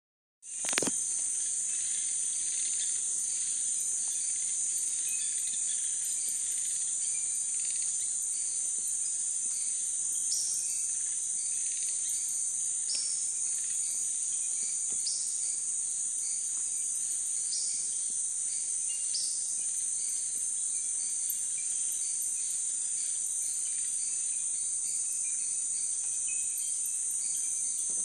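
Rainforest insects droning steadily at a high pitch, one continuous chorus. From about ten seconds in, a second caller adds a short note every two seconds or so. A brief click sounds just as the sound begins.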